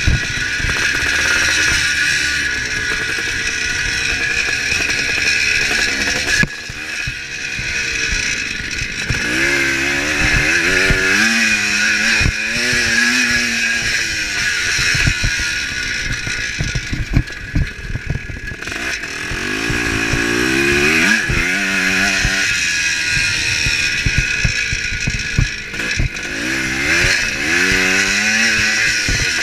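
1975 Kawasaki KX400's two-stroke single-cylinder engine under race throttle, its pitch rising and falling again and again, with sharp knocks and clatter from the bike over the rough track.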